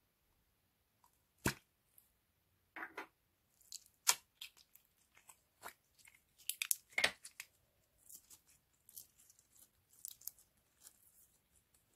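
Slime being squished and mixed by hand: scattered sticky clicks and crackling pops that come thicker after the first few seconds, loudest in a cluster around the middle.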